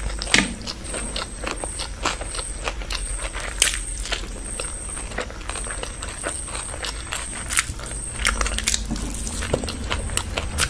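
Close-miked mouth sounds of a person eating stir-fried noodles by hand: chewing and slurping, with frequent irregular wet clicks and smacks, over a low steady hum.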